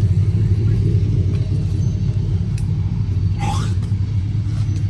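Steady low vehicle rumble, with a short rising chirp about three and a half seconds in.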